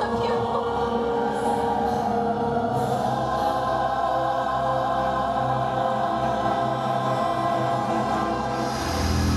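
Choral music, voices holding long sustained chords. A deeper swell comes in near the end.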